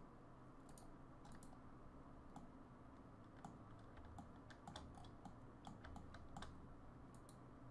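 Near silence broken by faint, irregular clicks of a computer keyboard and mouse being worked, over a low steady background hum.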